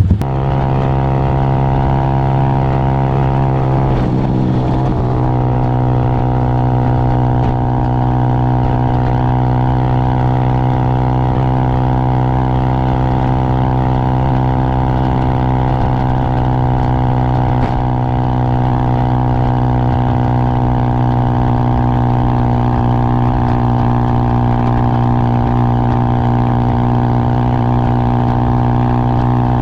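Motorcycle engine running at a steady speed while riding, with a brief shift in pitch about four seconds in.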